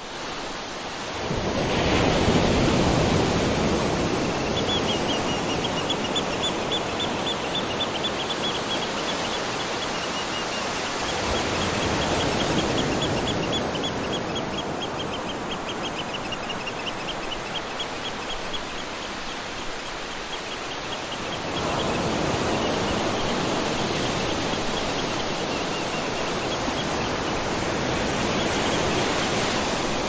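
Waterfall and water rushing over rocks, a steady hiss that fades in over the first couple of seconds, then gently swells and eases. From about five seconds in, a high, rapidly pulsing trill runs on over the water.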